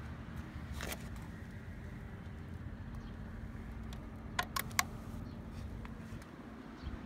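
Metal keys on a key ring clinking, a quick cluster of three or four sharp clicks about four and a half seconds in, with a single click near the start, over a steady low hum.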